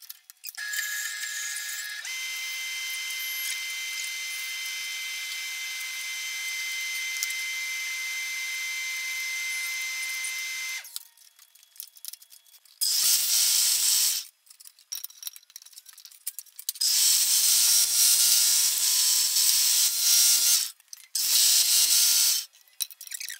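Bench belt and disc sander running steadily, then three louder spells of wood being ground against the sanding disc in the second half.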